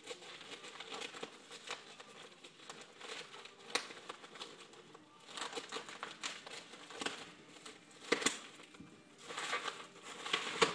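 Scissors cutting through the packing wrap around a tube, with crinkling and rustling of the wrap as it is cut and pulled open. A few sharp snips stand out, two of them in quick succession past the middle.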